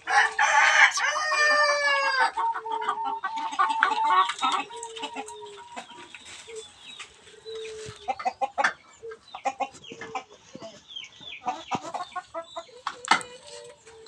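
A rooster crows once at the start, a loud call of about two seconds. After it come assorted chirps, short calls and falling coos from caged birds, with scattered light clicks and knocks.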